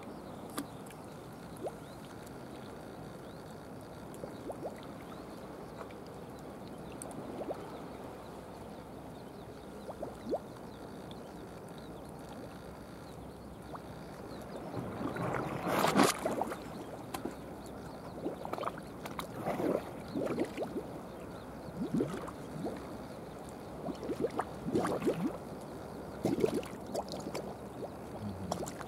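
Sea water lapping and sloshing at the surface. From about halfway there are irregular splashes and knocks, the loudest about sixteen seconds in.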